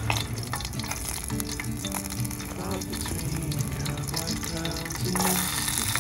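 Food sizzling in olive oil in a pan, with light clicks of a utensil stirring. The sizzle turns louder and hissier about five seconds in.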